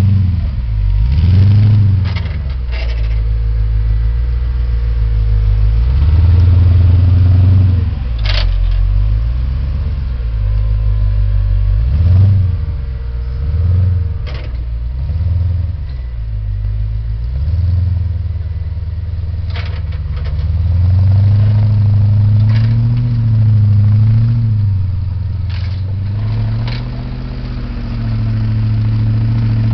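Off-road challenge buggy's engine revving up and dropping back over and over as it claws through a steep muddy gully, with a few sharp knocks along the way.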